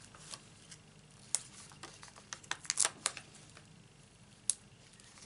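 Faint paper handling: a handful of soft, scattered ticks and rustles as fingers press and work a small cut-out paper piece onto foam adhesive pads (dimensionals).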